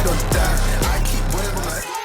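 Hip-hop background music with a heavy bass beat and a wavering vocal line, starting to fade out.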